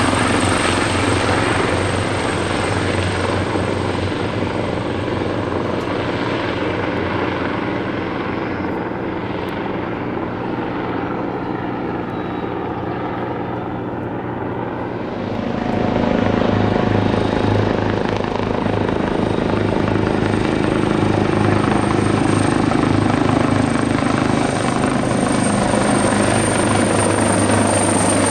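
Leonardo AW139 twin-turboshaft helicopter running, with a steady high turbine whine over the beat of the rotor. About halfway through it grows louder and the low rotor beat becomes stronger.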